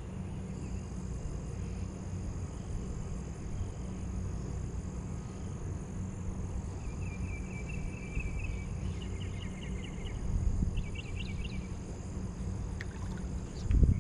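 Steady low outdoor rumble beside a pond, with short runs of fast, high trilling bird calls a little past halfway and again near the end.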